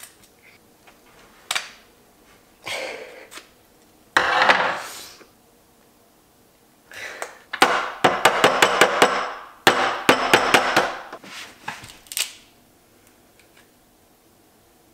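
Lobster shell being cut with kitchen scissors and cracked apart: sharp cracks and crunching snaps in irregular bursts, a loud crunch about four seconds in and a quick run of cracks over several seconds past the middle.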